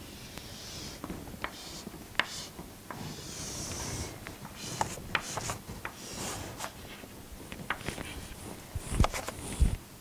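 Chalk scratching and tapping on a chalkboard as lines are drawn, in short strokes with sharp ticks where the chalk meets the board. Two louder knocks come near the end.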